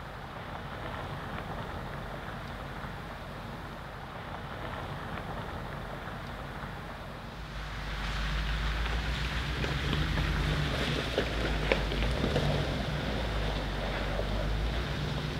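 Converted shuttle bus engine running as the bus drives over a rough, stony track, with wind buffeting the microphone. About eight seconds in the engine becomes much louder and closer, and a few sharp knocks from the tyres on stones follow past the middle.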